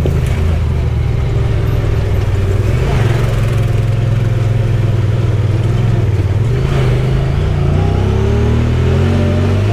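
Side-by-side UTV engine running steadily under way. Its pitch dips about six and a half seconds in, then rises again near the end.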